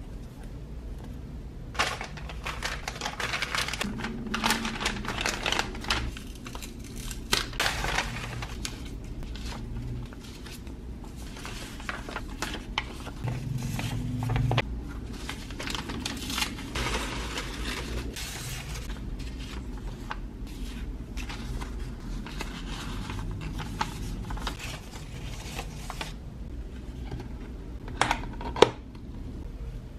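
Paper and card being handled: postcards, paper scraps and tissue paper rustling and crinkling in irregular bursts, with two sharp clicks near the end as a cardboard washi tape box is opened.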